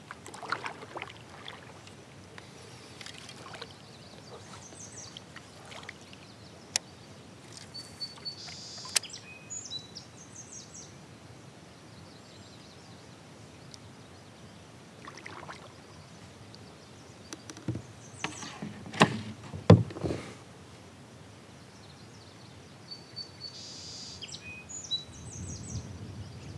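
Quiet lake ambience in a fishing kayak: scattered sharp knocks and clicks from the kayak and fishing tackle, loudest in a short cluster about two-thirds of the way through. Short bird calls come twice.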